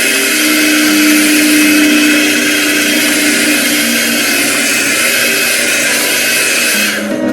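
Handheld hair blow dryer running with a steady rushing blow and a faint whine, switched off near the end.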